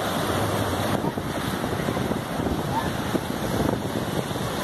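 Surf breaking and washing in foam, with wind buffeting the microphone in a steady rush.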